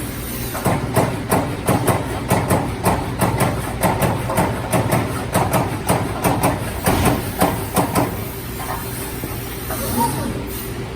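CNC turret punch press (Strippit Parma 1212, 22-ton) punching sheet metal: a rapid, regular run of punch hits, about three to four a second, over the machine's steady running hum, with the hits stopping about 8 s in and the hum and hiss carrying on.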